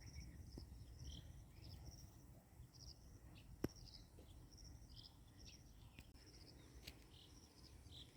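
Faint natural outdoor ambience: short high chirps in small clusters, repeating irregularly over a low rumble, with one sharp click a little before the middle.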